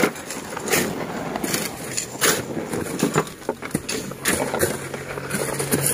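A wooden levelling board being dragged over loose gravelly soil, making a series of irregular scrapes with stones knocking.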